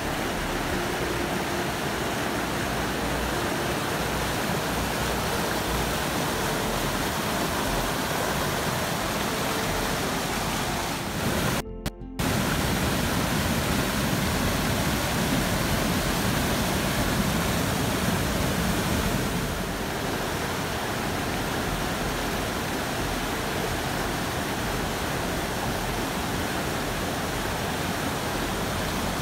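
Steady rushing roar of a spring-flooded creek pouring over rapids and a small waterfall, with a brief break about twelve seconds in.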